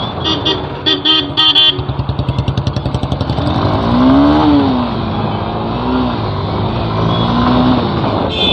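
Street traffic with several short vehicle horn toots in the first two seconds, over a motorcycle engine running, whose quick pulsing beat is clearest a couple of seconds in.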